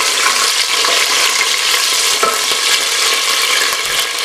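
Hot oil sizzling steadily as whole spices (cloves, cardamom pods and a cinnamon stick) fry in an aluminium pot, stirred with a wooden spoon.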